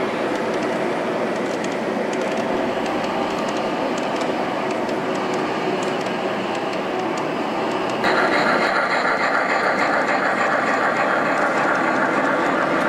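G-scale model train rolling past on its track, a New York Central diesel hauling passenger and hopper cars, its wheels running over the rails against the hall's background noise. About eight seconds in, the sound changes abruptly to a louder, denser mix.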